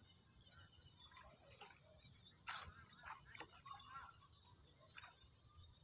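A steady, high-pitched insect chorus, crickets, with short scattered chirps over it and two soft knocks about halfway through.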